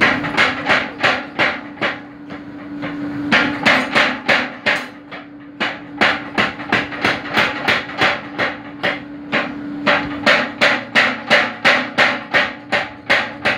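Forging power hammer pounding a red-hot steel bar on its die, about three to four blows a second in runs of a few seconds with brief pauses between, over the steady hum of the machine's drive.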